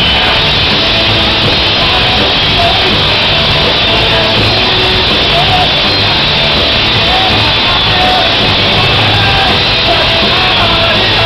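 Rock band playing live and loud, with electric guitars, bass and drums and a singer's voice over them. The band comes in all at once at the start.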